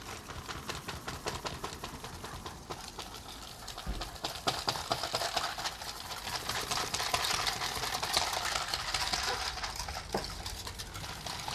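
Wire whisk beating a vinaigrette in a stainless steel bowl: a fast, steady rattle of the wires clicking and scraping against the metal, getting louder about four seconds in.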